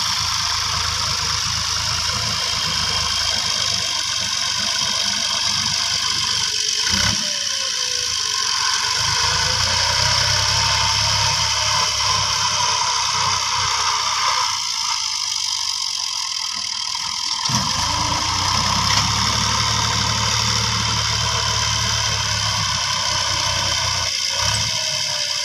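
Fiat 480 tractor's three-cylinder diesel engine running steadily under load as it pulls a seed drill through tilled soil.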